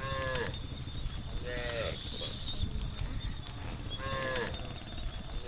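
Cattle mooing in short calls, about three, each dropping in pitch at its end, over a steady low rumble.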